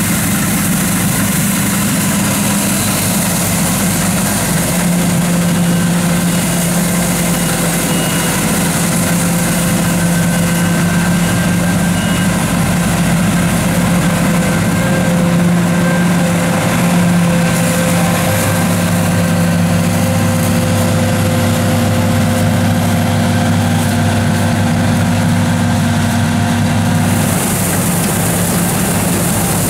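Combine harvester running under load while harvesting rapeseed: a steady engine and machinery drone. Its tone changes a little twice as the shot changes.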